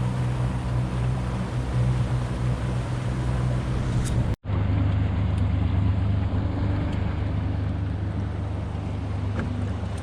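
Boat motor running steadily, a low drone with water and wind noise. It cuts out for an instant a little over four seconds in, then carries on at a slightly different pitch.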